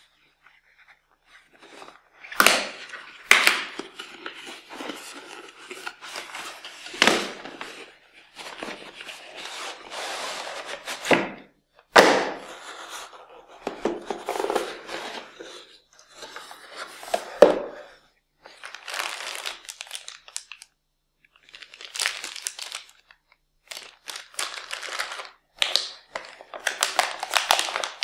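Cardboard graphics-card packaging handled by gloved hands: scraping and sliding with several sharp knocks as the inner box comes out of its sleeve and is opened. Near the end a metallized anti-static bag crinkles.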